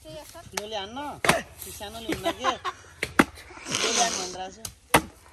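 An axe chopping into a felled log: three sharp blows about two seconds apart, with voices talking in between.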